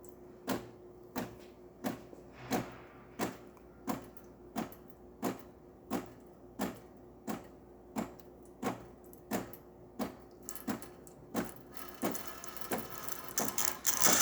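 DeLonghi Magnifica espresso machine switched to steam, making a regular clicking pulse about every two-thirds of a second while it builds steam. Near the end a hiss starts and grows as steam begins to come out.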